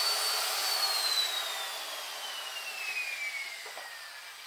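Motor of a handheld power scraper whining, then switched off about half a second in and winding down, its pitch falling steadily as it coasts to a stop.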